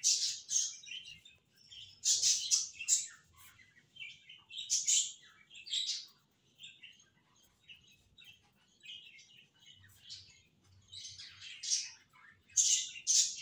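Ballpoint pen scratching on notebook paper while writing, in irregular clusters of quick strokes with short pauses between.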